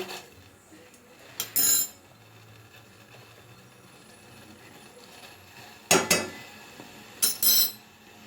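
Metal spoon clinking against metal cookware in three short clusters of ringing taps, as spoonfuls of spices and ginger are tipped into the boiling water.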